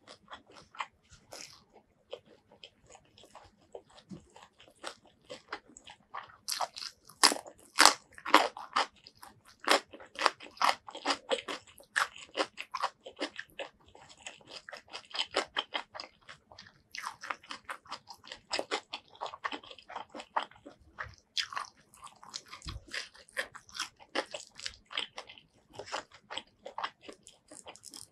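Close-miked mouth sounds of someone eating crunchy food: crisp bites and chewing crunches, the loudest around seven to eight seconds in, then steady chewing.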